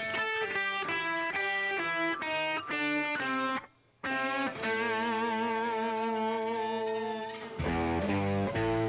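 Les Paul electric guitar playing a song intro: a run of single picked notes at about three a second, then after a short break a long held note that wavers in pitch with vibrato over ringing strings. Near the end it moves into heavier, lower repeated chords.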